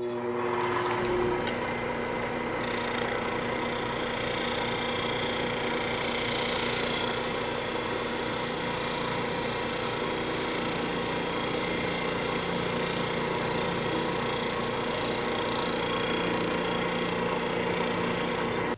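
Wood lathe running with a bowl gouge taking a pull cut along the outside of a green-wood blank: a steady motor hum under the even rushing noise of the cut. The gouge is slicing downhill to the grain with its wing and bevel support, the cut that leaves a clean surface needing little sanding.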